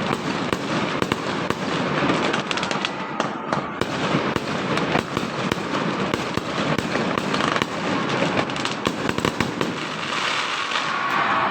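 Fireworks and firecrackers going off all around in a dense, continuous barrage of many overlapping bangs and crackles.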